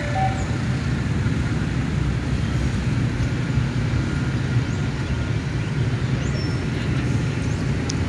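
Steady low rumble of a slowly moving train, heard from on board.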